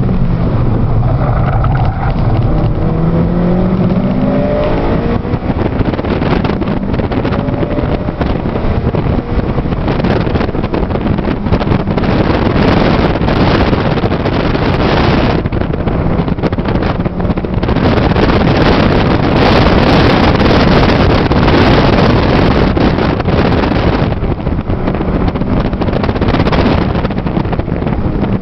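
A 2008 Honda Civic Si's 2.0-litre i-VTEC four-cylinder engine heard from inside the cabin while lapping a track, its pitch climbing under acceleration over the first few seconds. After that, loud rushing wind and road noise mostly cover the engine, surging louder several times.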